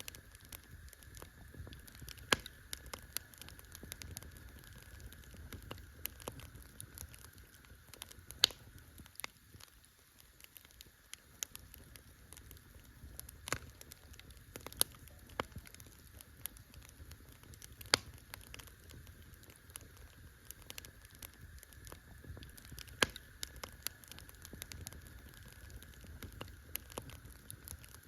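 Campfire of burning wood crackling: irregular small snaps and ticks, with a few sharper, louder pops scattered through, over a soft low rumble.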